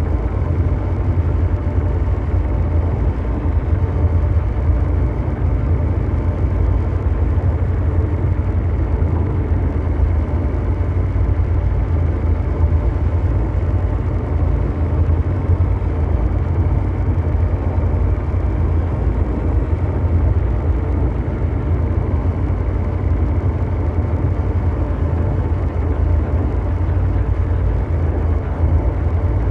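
Ambient mechanical drone noise: a steady, deep engine-like rumble with a faint whir and hum over it, unchanging throughout.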